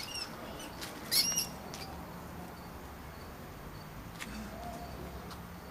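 Wild rat squeaking: two short, high-pitched squeaks, the louder one about a second in, from the rat cornered by cats.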